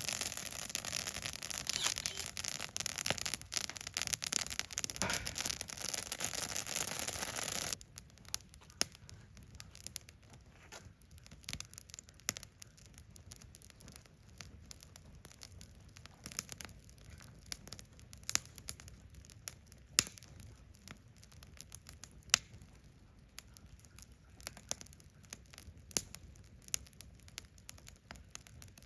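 Wood fire crackling in a Solo Stove Yukon fire pit: a dense, loud hiss and crackle for about the first eight seconds, then an abrupt drop to a quieter fire with sparse sharp pops.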